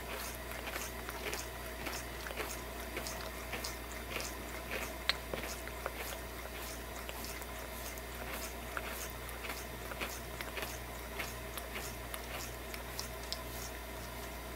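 Cat grooming, licking its front paw and the bedding under it: an irregular run of small, wet licking clicks, several a second, heard close up.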